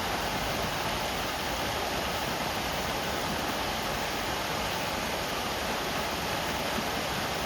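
River water flowing and rushing, a steady, even rush with no breaks.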